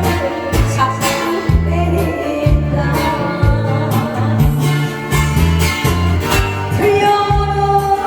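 Loud backing music with a steady drum beat and a pulsing bass line, with a voice singing over it.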